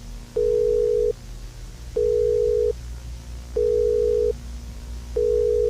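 Emergency alert beeps: a single steady tone sounds four times, each beep about three-quarters of a second long and about a second and a half apart, over a faint low hum. It is the attention signal that comes before an emergency announcement.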